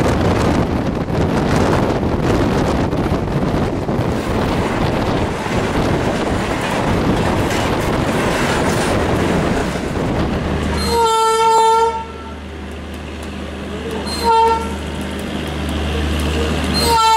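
Rushing wind and rail noise heard from a moving train running alongside another train. About eleven seconds in this gives way to a low steady hum and a single-note electric locomotive horn: a blast of about a second, a short toot some three seconds later, and another blast starting near the end.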